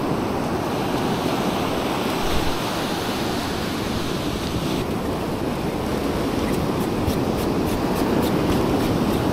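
Ocean surf breaking and washing up over the sand at the water's edge: a steady rushing wash.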